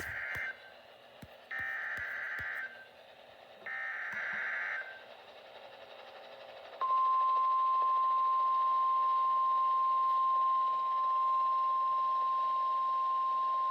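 Emergency Alert System SAME header: three bursts of warbling digital data tones, about a second each, followed about two seconds later by the NOAA Weather Radio 1050 Hz warning alarm, one steady loud tone. Together they signal an incoming severe thunderstorm warning.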